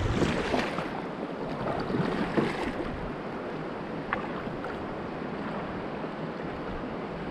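Kayak paddle strokes splashing in swift river water for the first few seconds, then the steady rush of the current along the hull.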